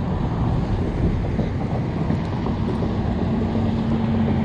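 Wind rumbling on the microphone, with a steady engine hum fading in from about halfway and growing louder toward the end.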